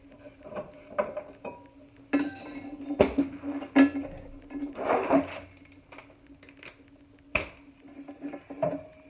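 Metal tools and brake parts knocking and clinking during work on a car's rear brake, with a scraping stretch in the middle and a steady low hum underneath.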